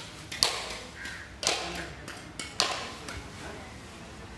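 Three sharp chops of a butcher's cleaver into beef and bone, about a second apart.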